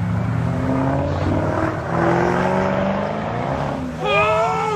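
Shelby Mustang convertible's engine revving hard as the car accelerates away, its pitch climbing over a couple of seconds. Near the end, a high, wavering squeal starts up.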